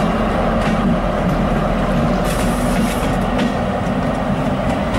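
Diesel locomotive engine running with a steady drone, the sound of a BB 75000 diesel locomotive on the move, with light rail noise.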